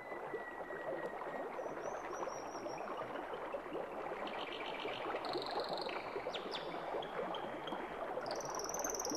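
Running water of a brook, a steady trickling and gurgling, with short high chirps and whistles scattered over it.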